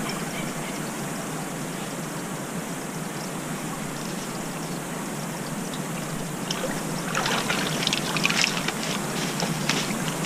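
Steady rush of a flowing forest stream. From about seven seconds in, crackling footsteps in dry fallen leaves join it.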